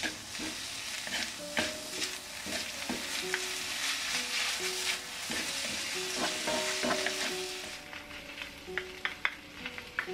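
Soy-sauced dried pollock strips sizzling in a cast iron wok while a wooden spatula stirs and scrapes them, with frequent short scrapes and knocks against the pan. The sizzle fades about eight seconds in, leaving a quick run of spatula scrapes near the end.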